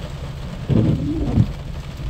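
A single short, low-pitched call or voice-like sound, under a second long, about halfway through, over a steady background of rain and a low hum.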